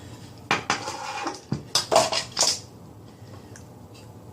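Basin wrench clanking and scraping on a tap's metal mounting nut as it is worked to loosen the nut. There is a quick run of metallic clicks and rasps between about half a second and two and a half seconds in.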